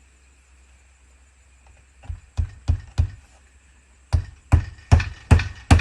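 A hammer driving nails through the nailing strip of a vinyl siding panel: four taps starting about two seconds in, then after a short pause a steady run of about five harder strikes, a little under half a second apart.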